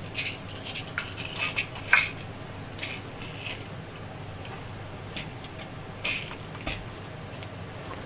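Hard 3D-printed plastic parts being handled and set against each other: scattered clicks and light knocks, the loudest about two seconds in, over a steady low hum.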